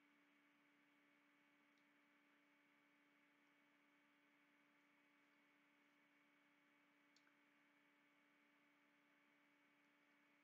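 Near silence: faint steady hum and hiss of room tone, with a faint double click about seven seconds in.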